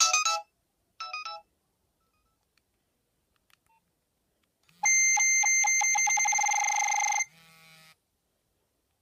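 Nokia 7100 Supernova's speaker playing Nokia 3510 ringtones: the last few short beeping notes of one melody, then after a pause a loud electronic ringtone whose notes repeat faster and faster for about two and a half seconds. A low buzz pulses three times underneath it.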